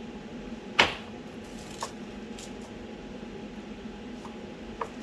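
Workbench handling noises during a glue-up: one sharp knock about a second in and a couple of lighter clicks, over a steady background hum.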